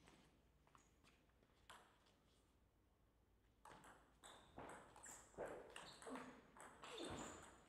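Table tennis ball clicking: a few separate taps, then from about three and a half seconds in a quick rally of hits off the paddles and bounces on the table. Some heavier thuds run among the hits, the loudest near the end.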